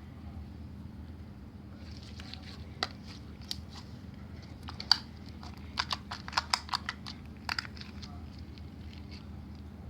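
Slime being squeezed and poked by hand, giving a run of sharp crackles and small pops that cluster in the middle and die away near the end.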